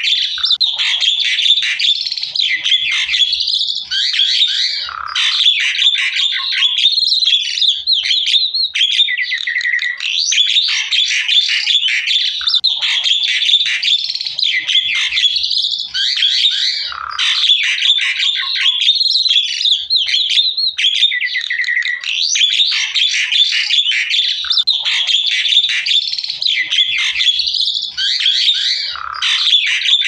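Javan myna (jalak kebo) singing: a continuous stream of harsh chattering and whistled notes, with brief breaks every few seconds.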